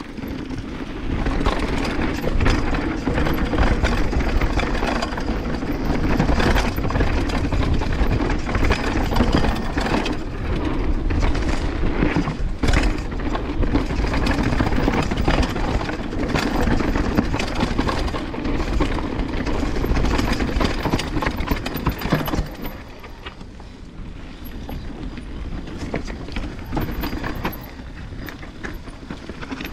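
Banshee Legend downhill mountain bike ridden fast over rough trail: tyres rolling on dirt with a dense clatter of knocks and a rattling chain, plus low rumble on the microphone. Quieter from about 22 seconds in.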